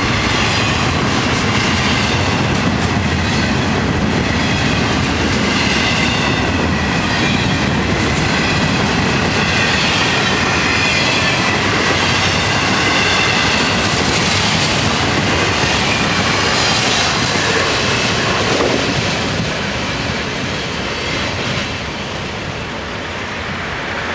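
Florida East Coast Railway freight train's empty intermodal well cars rolling past, steel wheels on the rails with a high, wavering squeal over the steady running noise. The sound dies down about 19 seconds in as the end of the train goes by.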